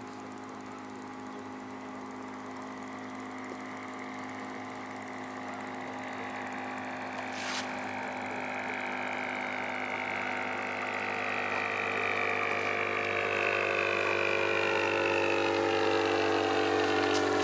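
Engine of a small long-winged propeller aircraft droning and growing steadily louder as it approaches, its pitch sliding slightly lower near the end. A single click about seven and a half seconds in.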